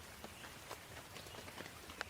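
Light rain: a soft steady hiss with irregular taps of single raindrops.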